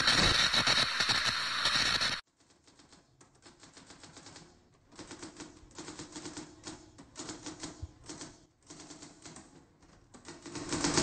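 A loud, dense sound cuts off abruptly about two seconds in. It is followed by quieter, irregular rapid clicking like typing, in runs with short pauses, that swells louder near the end.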